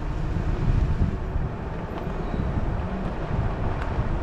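Low, steady rumble of a car driving slowly.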